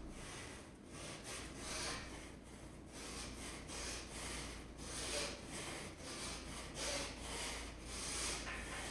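A person breathing hard, with quick noisy breaths roughly every half second to a second.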